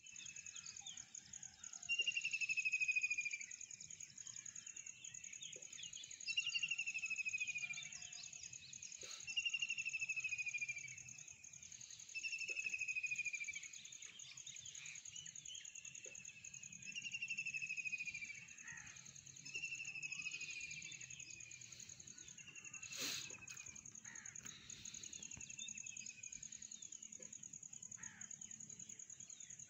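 Outdoor animal sounds: insects keep up a steady high trill, while a bird repeats a clear falling whistle, each about a second long, every three to four seconds. One sharp click falls about three quarters of the way through.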